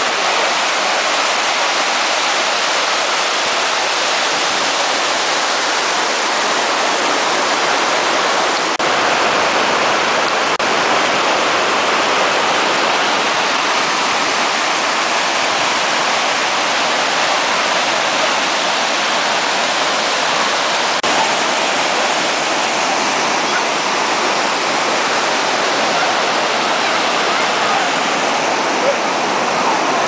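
Creek water rushing over rock ledges and small cascades into rock pools: a steady, unbroken rushing.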